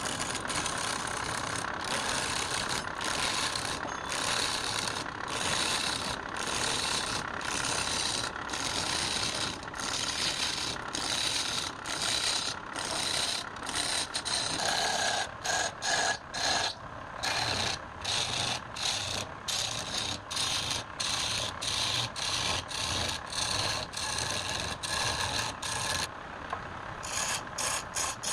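Repeated rasping strokes on wood, like hand sanding or filing, about one to two strokes a second and quickening near the end.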